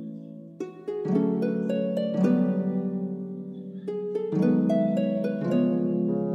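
Background music: plucked notes over held chords, changing about once a second.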